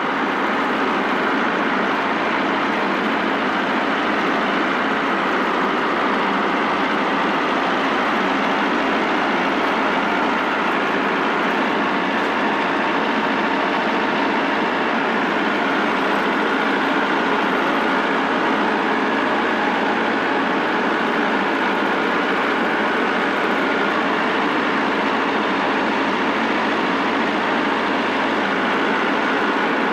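Farm tractor engine running steadily while the tractor works its front loader bucket to push over a downed tree.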